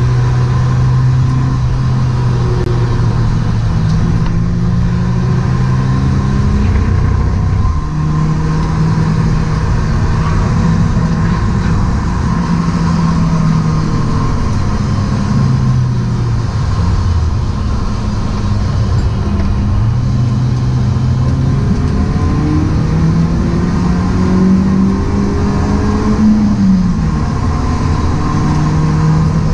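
A stock BMW E36 Compact's engine heard from inside the cabin, pulling hard on track. Its note climbs steadily and then drops sharply a few times as the gears change or the driver lifts for corners, over constant road and wind noise.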